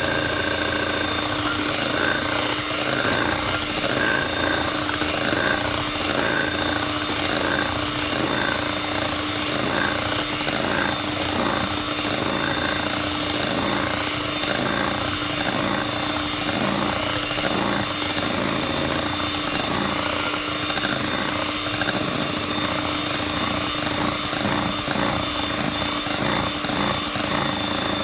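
Electric hand mixer running steadily, its beaters whipping egg whites into meringue in a glass bowl, with a constant motor hum.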